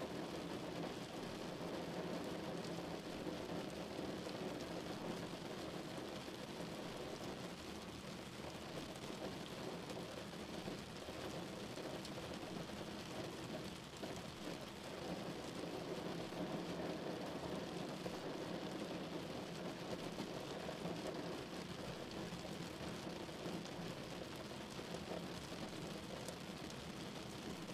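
Steady rain hitting the windshield and body of a moving car, heard from inside the cabin, over steady tyre noise on the wet road.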